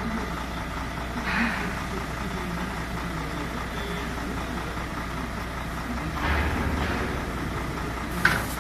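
Heavy dump truck's diesel engine idling steadily while the electric tarp arms swing over. Brief rushes of noise come about a second in and again around six seconds, and a sharp knock near the end as the arms come down onto the body.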